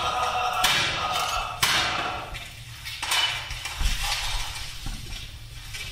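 A series of sharp bangs or knocks, about one a second, each followed by echo through a stone tunnel, with weaker knocks in the second half.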